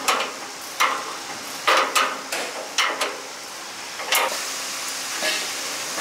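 Sharp metal clinks and taps of a wrench on the nuts and steel frame of a corn thresher, as the roller-shaft nut is loosened and adjusted. About nine separate clicks come irregularly over a steady background hiss.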